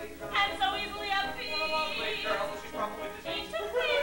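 A woman singing a song from a musical, the pitch held and moving from note to note.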